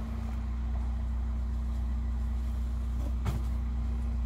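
An engine idling with a steady low hum, and a single short click about three seconds in.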